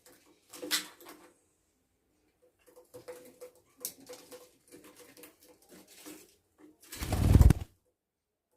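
Pet budgerigars chattering softly with small clicks and murmurs, with one brief louder call under a second in. Near the end comes a much louder, deep rustling thump lasting under a second.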